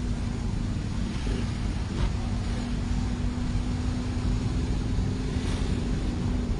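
Steady engine and road rumble inside a moving car's cabin, with a steady hum from about a second in until near the end.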